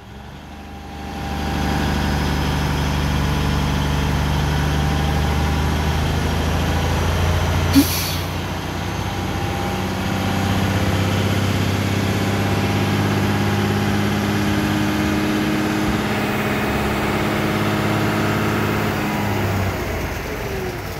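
Dump truck engine running at raised speed to drive the hydraulic hoist as the dump bed tips up: a steady drone, with a brief sharp noise about eight seconds in. The engine drops back near the end as the hoist stops.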